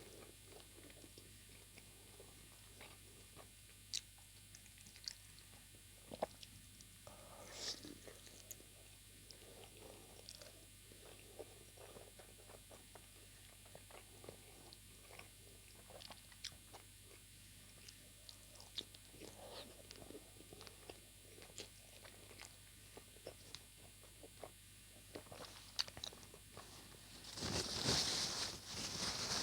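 Close-miked chewing and biting of chicken momos (steamed dumplings), with soft wet smacks and mouth clicks scattered throughout. Near the end a louder hiss-like noise sets in.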